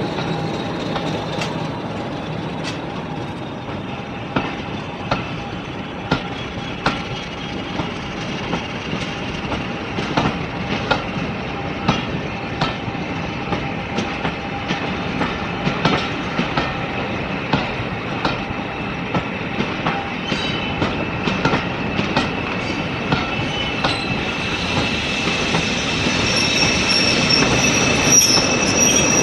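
Diesel-hauled passenger train pulling slowly out of a station, its wheels clicking over rail joints in a steady clickety-clack. A high wheel squeal rises over the running noise and grows louder near the end.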